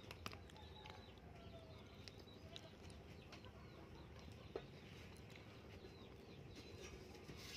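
Near silence: faint background with a few faint short bird calls and scattered soft clicks, one slightly louder click about halfway through.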